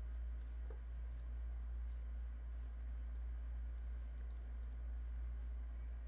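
Faint, scattered clicks of a computer mouse and keyboard being worked, over a steady low hum.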